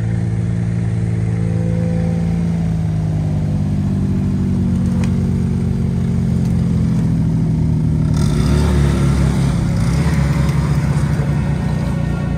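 Snowmobile engines running at idle close by, then one moving off about eight seconds in, when the sound grows fuller and noisier as it gathers speed.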